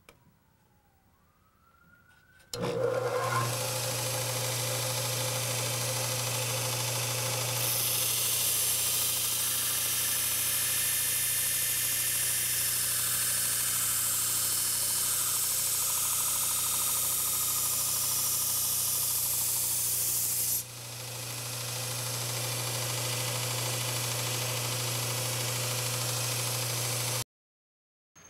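A bench belt sander comes on about two and a half seconds in and runs with a steady hum while the steel blade of a Martindale No. 204 machete is held against the abrasive belt to sharpen it. The grinding hiss is loudest from about eight seconds in to about twenty-one seconds, then eases as the sander runs on, and the sound cuts off suddenly near the end.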